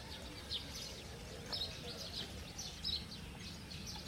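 Small birds chirping in short, high, repeated calls over a steady low background rumble.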